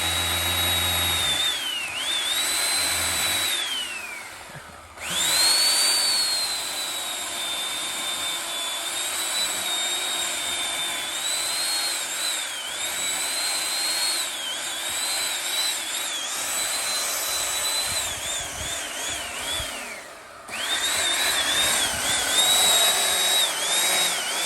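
Electric chainsaw felling a tree, cutting well: a high motor whine that sags in pitch each time the chain bites into the wood. It stops briefly about four seconds in and again about twenty seconds in, then starts again.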